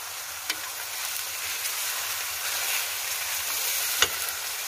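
Chopped onions frying in hot oil in a pan, giving a steady sizzling hiss. A spatula clicks against the pan twice, faintly about half a second in and more sharply about four seconds in.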